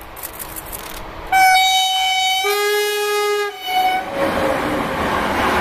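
Diesel locomotive's horn sounding a higher note, then a lower one, then briefly the higher note again. About four seconds in, the loud, steady noise of the train's wheels and coaches passing close by takes over.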